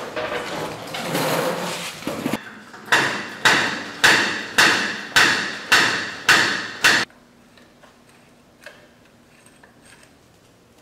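Foot-pumped hydraulic motorcycle lift table raising a dirt bike: eight sharp metallic clanks about every half second, one per pedal stroke. A couple of seconds of scraping noise come before them, and a few faint tool clicks follow once they stop.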